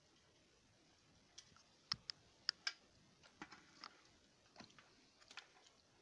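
Faint, scattered clicks and taps of hands working loose a pico PSU and its wiring inside a PC case, with four sharper clicks close together about two to three seconds in.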